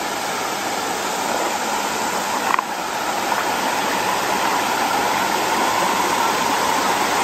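Steady rush of creek water pouring over a low stepped dam spillway and through the shallow riffle, with one brief sharp sound about two and a half seconds in.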